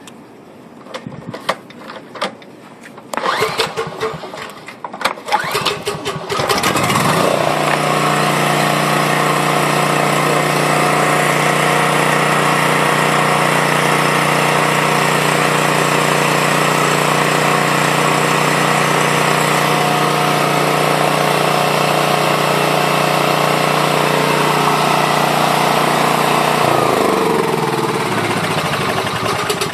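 A 5,000-watt portable generator's engine being pull-started on natural gas through a conversion kit: rope pulls, then it catches about six seconds in, quickly picks up speed and runs steadily. Near the end its pitch falls as the engine slows.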